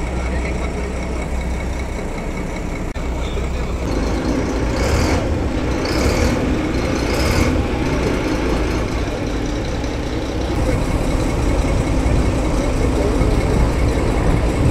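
Boat engine running with a steady low rumble. From about four seconds in, a crowd's voices join it, with three short hissing bursts a second or so apart.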